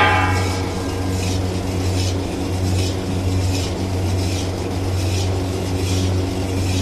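Long metal spatula stirring gram flour into melted ghee in a metal pan, its strokes swishing and scraping about every 0.7 seconds over a steady low mechanical hum. A ringing metallic clink sounds at the very start.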